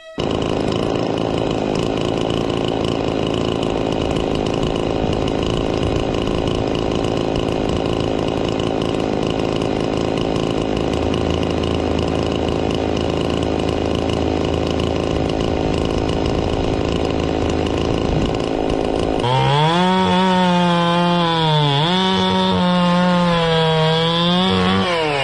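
Chainsaw running and cutting through apple wood. For the last several seconds the engine note is clearer, its pitch dropping and recovering again and again as the chain loads up in the cut.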